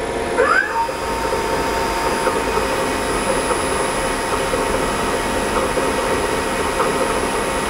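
Okuma Cadet LNC-8 CNC lathe spindle speeding up to 1,000 RPM in its high gear range: a rising whine about half a second in, then running at a steady pitch over the machine's steady hum.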